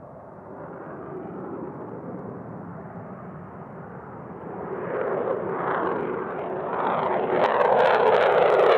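Fighter jet engine noise building steadily louder over several seconds.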